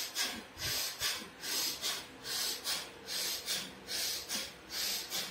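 A man doing forceful, rapid yoga breathing: quick, even rushes of air in and out, about two a second.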